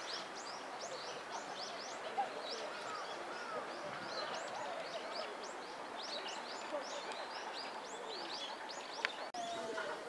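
A flock of small birds chirping busily in the trees, a steady stream of short, high, downward-sliding chirps, over a faint murmur of people's voices. A single sharp click with a brief dropout about nine seconds in.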